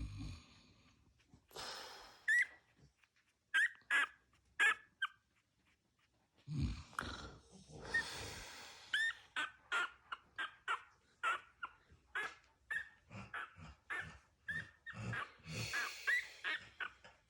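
A dog making many short, high-pitched vocal sounds, coming about two a second in the second half, with a few longer breathy sounds among them.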